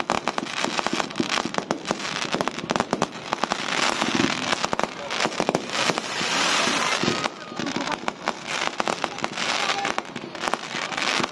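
Fireworks going off: many rapid crackles and bangs from bursting shells, with a stretch of steady hissing a little past halfway.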